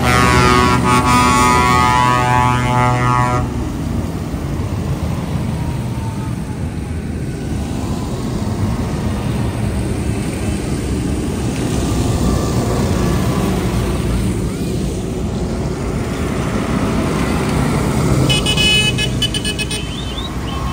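A tractor horn sounding in one long blast of about three and a half seconds as it drives past, then diesel tractor engines running and tyres hissing on a wet road as more tractors pass. A shorter, higher-pitched tone sounds briefly near the end.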